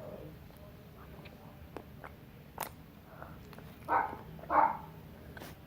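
Eating an ice cream cookie: a few scattered crisp biting and chewing clicks, with two short vocal sounds about four seconds in.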